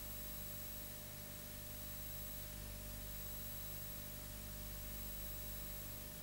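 Steady hiss with a low electrical hum and a faint high whine. This is the background noise of a silent home-movie transfer, with no other sound.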